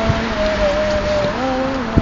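Outdoor street ambience: a steady hiss like wind and traffic on the microphone, with a few faint held tones that shift in pitch.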